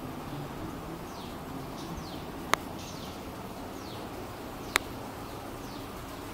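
Glass water-curtain fountain running steadily, water trickling down the glass panel and splashing into its glass basin. Two sharp clicks stand out about two and a half and nearly five seconds in, and faint short high chirps falling in pitch come every second or so.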